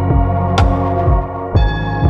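Background music: an ambient electronic track of sustained tones over a slow, steady low beat, with a bright chime-like strike about halfway through.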